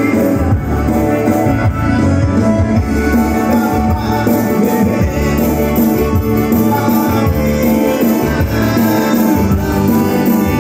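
Live band playing an instrumental passage: electric guitar and a Yamaha keyboard over a steady beat with strong bass.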